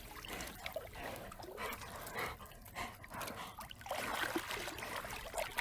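A dog making faint whimpers and small noises.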